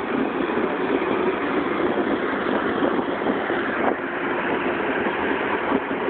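Case 621 wheel loader's diesel engine running steadily as the loader drives past and away.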